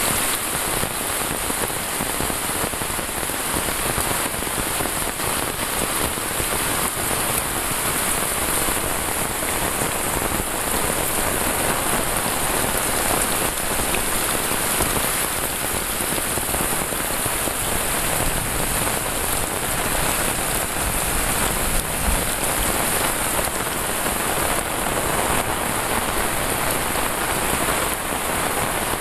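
Heavy rain falling steadily on a paved lane, roofs and foliage: a dense, even hiss with no letup.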